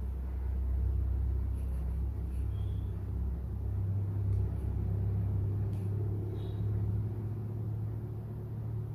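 A steady low rumble that shifts slightly higher in pitch about three seconds in, with a few faint light ticks over it.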